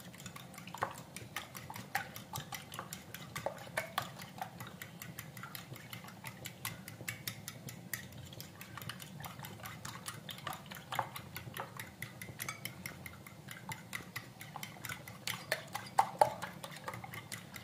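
A metal fork beating raw eggs in a ceramic bowl: quick, steady clicks of the fork against the bowl's sides and bottom, with a few louder clinks near the end.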